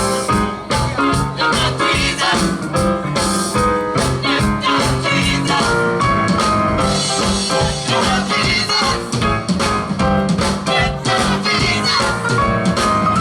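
Gospel band playing live, with drums keeping a steady beat under sustained instrumental notes.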